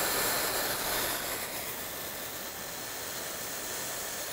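Handheld hair dryer blowing steadily: a rush of air with a faint high motor whine, a little quieter after about a second.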